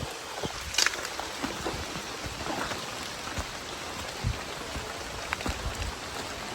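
Steady rain falling, with scattered heavier drops striking close by.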